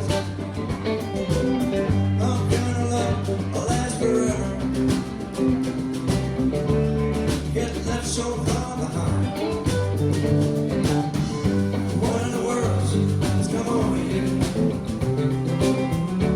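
A band playing a country-rock song: guitar chords over a bass line, with drums and cymbals keeping a steady beat.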